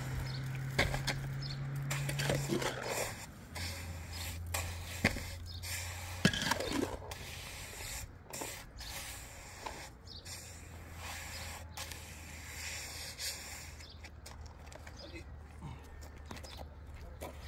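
Irregular scraping with a few sharp knocks, over a low steady hum that drops in pitch about three and a half seconds in.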